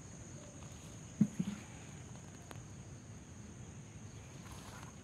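Steady high-pitched drone of insects in the field, with a brief low thump and a couple of quick follow-ups just over a second in.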